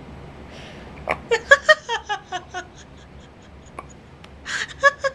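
Person laughing: a quick run of about eight short, high ha-ha bursts falling in pitch, then one short sharp click, and a breathy gasp with a few more laughs near the end.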